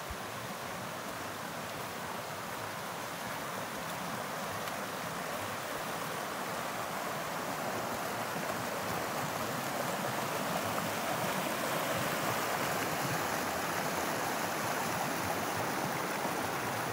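Creek water running, a steady rushing that grows gradually louder.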